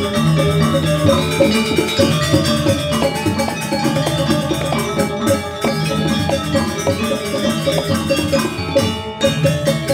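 Balinese gamelan playing: metal-keyed percussion ringing in fast, repeating patterns over drums.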